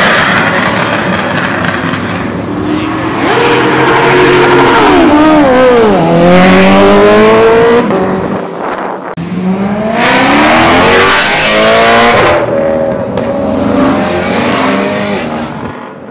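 Performance car engines revving and accelerating hard, with loud exhaust. The engine pitch drops and then climbs steeply twice, near the middle and again a few seconds later.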